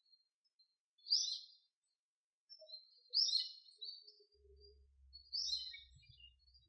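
A small bird chirping in three short bursts of quick high notes: about a second in, around three seconds in and about five and a half seconds in.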